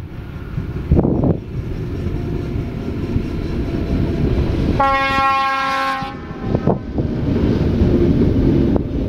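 Class 113 electric locomotive with its passenger coaches running past, its horn sounding once for just over a second about five seconds in, over a steady low rumble of train noise and wind on the microphone.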